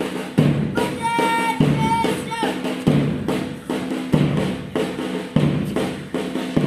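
Marching drum beat: a bass drum struck about every second and a quarter with lighter snare strokes between, keeping time for cadets marching.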